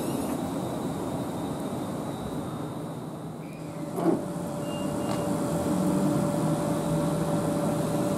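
London Northwestern Class 350 Desiro electric multiple unit at the platform: steady train noise, then a sharp click about four seconds in, after which a steady electrical hum with a held tone continues from the standing unit.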